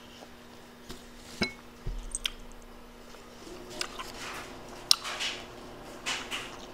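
Eating rambutan up close: soft wet chewing and mouth sounds, with scattered sharp clicks and small crackles as the fruit is bitten and handled.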